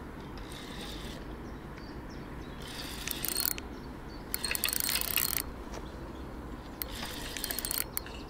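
Spinning reel's drag clicking in four bursts of rapid ticks, each about a second long, as a hooked carp pulls line against it.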